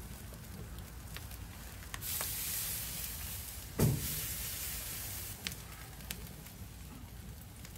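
Prime rib roast sizzling on a grill grate over hot charcoal, the hiss swelling about two seconds in. A dull thump about four seconds in as the roast is moved on the grate, with a few sharp crackles and clicks.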